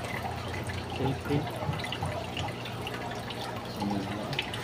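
Aquarium water bubbling and trickling from an air-driven sponge filter, small bubbly clicks over a steady low hum.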